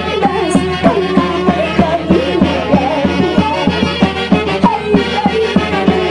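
Live band music: melody instruments playing over a steady drum beat.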